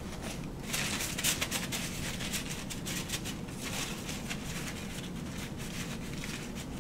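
Paper towel rustling and crinkling as wet forearms are patted dry, starting about a second in, over a low steady room hum.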